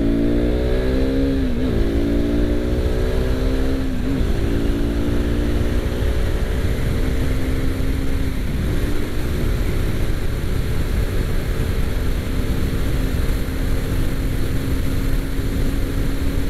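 KTM RC390's single-cylinder engine running under way, with wind rush over the microphone. Its note breaks and shifts twice in the first four seconds, then settles into a steady cruise.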